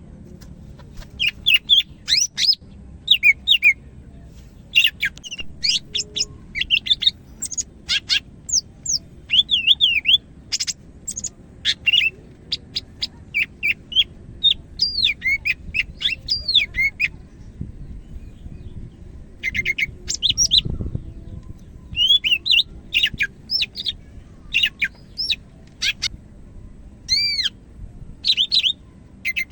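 Cucak hijau (green leafbird) singing vigorously: a rapid run of varied chirps, slurred whistles and short trills, broken by brief pauses.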